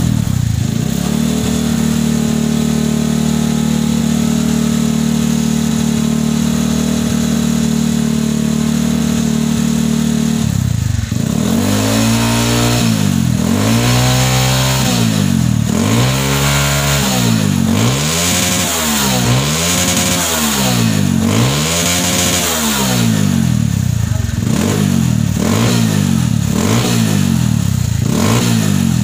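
Honda Mega Pro's single-cylinder engine idling steadily through a hollowed-out ('bobok') exhaust muffler, then, from about a third of the way in, blipped over and over, about one rev every one and a half seconds, each rising and falling. The muffler has been hollowed out for a mellow, soft ('empuk') exhaust note.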